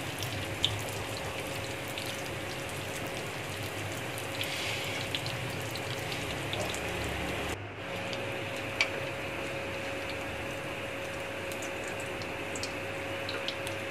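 Samosas deep-frying in hot ghee: a steady sizzle of bubbling fat with a few small pops. The sizzle breaks off for a moment about seven and a half seconds in, then carries on.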